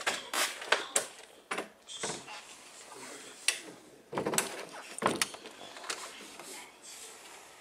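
Wooden-framed door or window being slid and handled, giving a string of sharp knocks, clicks and rattles, the busiest in the first second and again around four to five seconds in.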